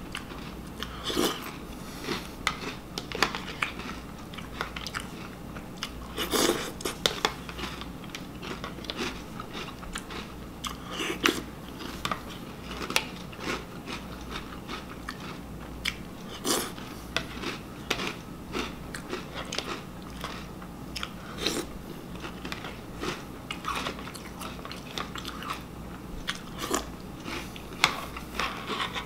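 Close-up crunching and chewing of a mouthful of Reese's Puffs cereal in milk, sharp irregular crunches every second or so through steady mastication.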